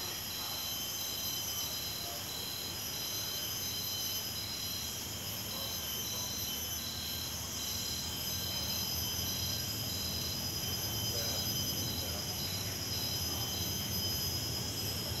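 Tropical forest insect chorus: several steady high-pitched drones at different pitches, one of them pulsing about three times a second.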